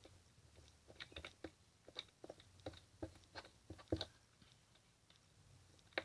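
Homemade slime being squeezed and worked in the hands, giving faint, irregular wet clicks and pops.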